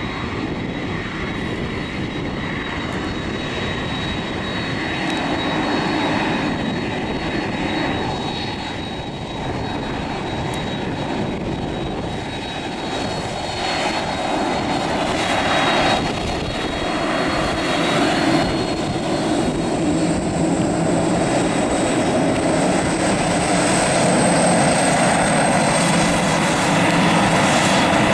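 Jet airliner engines running with a steady roar and a thin high whine. The sound grows louder through the second half.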